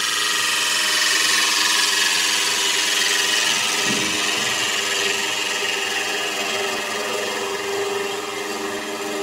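Wood lathe running while a turning tool cuts a spinning cedar of Lebanon blank: a steady cutting hiss over a steady machine tone.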